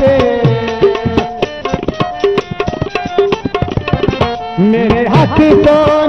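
Instrumental break in a Saraiki mahiya folk song: rapid hand-drum strokes under a wavering melody line.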